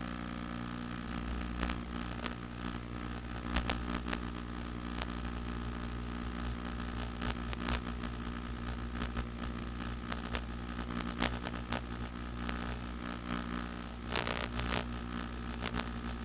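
Steady electrical hum with crackling clicks scattered through it and a low rumble coming up about a second in, as carried on an analog FPV video link's audio.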